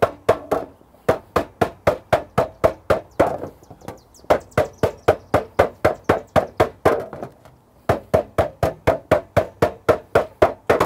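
A ball peen hammer strikes thin 22–24 gauge copper sheet in quick runs of about three to four blows a second, each blow a sharp metallic hit with a short ring, with a few brief pauses. The copper is being dished into a bowl, and the metal tightens as it is worked.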